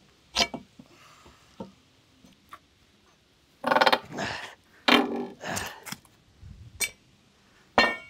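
Nails being levered out of a silver maple log with a steel pry bar: light metal clicks, then two longer pitched creaks as the nail is drawn out of the wood, about four and five seconds in, followed by a couple more sharp clicks.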